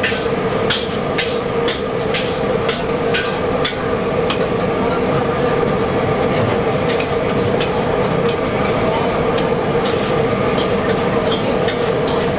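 Metal spatula repeatedly scraping and clacking against a steel wok as egg is scrambled beside pad thai noodles, with the sizzle of frying underneath and a steady hum behind it. The clacks come thickest in the first few seconds and again near the end.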